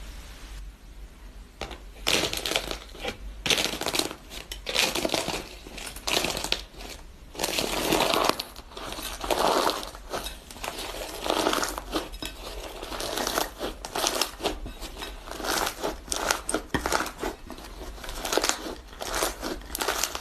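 Crinkly, crunching handling sounds of a crunchy ASMR material being pressed and worked, in quick irregular bursts over a low steady hum.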